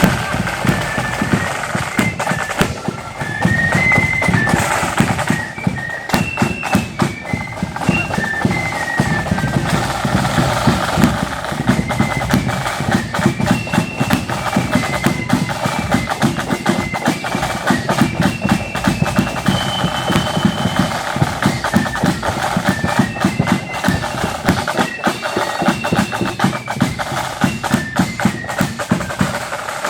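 Marching band playing: a high-pitched wind melody over a steady beat of bass and snare drums.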